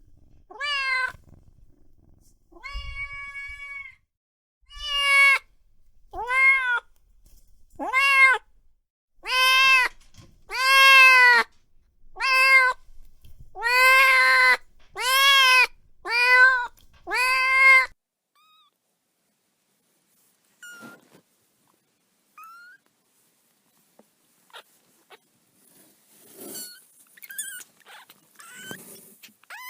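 Newborn kitten crying: a run of about a dozen high-pitched meows, each rising and falling, roughly one a second. Then it goes quiet apart from faint scattered sounds, with one more call at the very end. These are the thin distress calls a kitten under a month old makes to bring its mother.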